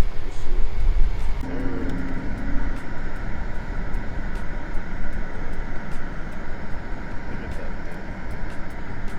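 Steady vehicle noise, a car's engine and road rumble, heaviest at the low end and loudest in the first second or so.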